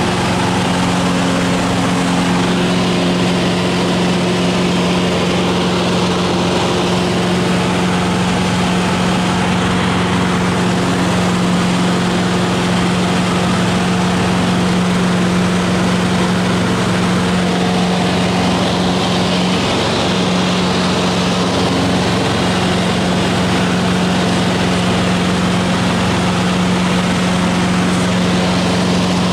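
Cessna 150 Aerobat's four-cylinder Continental O-200 engine and propeller droning steadily under power, heard from inside the cockpit, with a strong low hum over a constant rushing noise.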